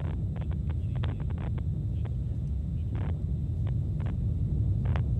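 Atlas V rocket in powered ascent: a steady low rumble from its RD-180 first-stage engine and solid rocket booster, broken by many irregular sharp crackles.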